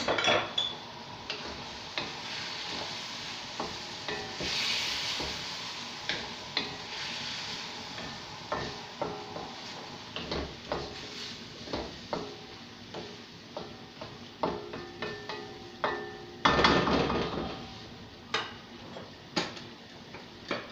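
Wooden spatula stirring chicken pieces in a metal wok, with repeated knocks and scrapes against the pan over the sizzle of frying. A louder, longer scrape comes about three quarters of the way through.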